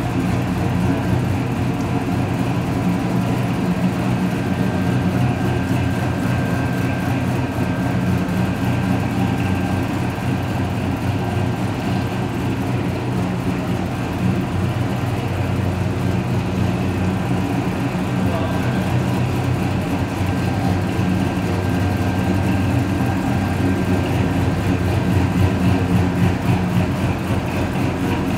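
A 1962 Chevrolet Biscayne wagon's engine idling at a steady, even pitch.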